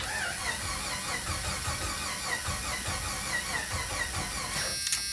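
1991 Jeep Wrangler's 4.0-litre straight-six cranking over on the starter motor in an even rhythmic pulse without firing. The engine has no spark, which the mechanic is checking against a dead tachometer as a sign of a failed crank position sensor.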